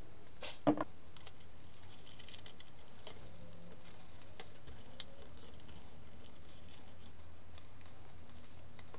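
Thin card being handled as a paper star's tabs are glued and pressed together: faint scattered paper rustles and clicks. A sharp knock, the loudest sound, comes about half a second to a second in, over a steady low hum.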